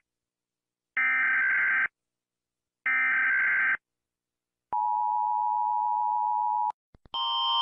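Emergency Alert System signal: the last two of three repeated data-header bursts, each about a second of harsh electronic buzzing with a second's gap, followed by the steady two-tone attention signal held for about two seconds and cut off abruptly. A couple of clicks follow, and near the end a different electronic alarm tone starts and grows louder.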